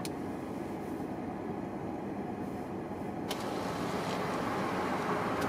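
Car engine idling, heard from inside the cabin: a steady low rumble, joined about three seconds in by a brighter hiss.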